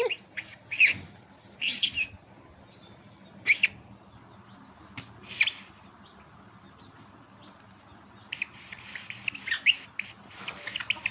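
A bird chirping in short, high calls: a few scattered chirps, then a quicker run of them near the end.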